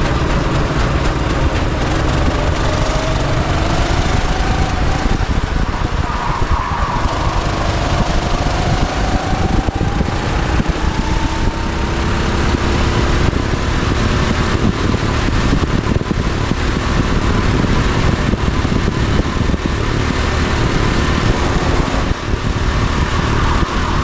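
Go-kart engine running flat out on track, heard from a camera mounted on the kart, its pitch climbing as it accelerates, under a heavy low rumble.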